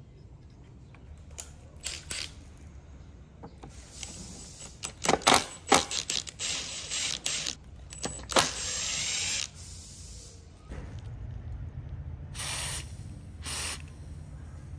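Cordless power driver whirring in short bursts, about a second at its longest, as screws are backed out of a rusty two-stroke chainsaw, with sharp clicks and clanks of metal parts being handled.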